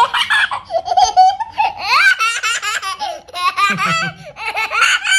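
A little girl laughing hard, in repeated high-pitched peals of rapid giggles.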